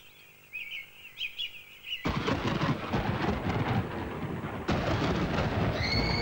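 Birds chirping, then a sudden thunderclap about two seconds in that keeps rumbling, with a second crack of thunder a little before the end. Held notes of music come in near the end.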